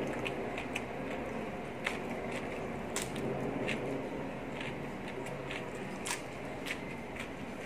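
Close-miked chewing and biting on raw leafy greens: short crisp clicks and crackles scattered through, over a steady background noise.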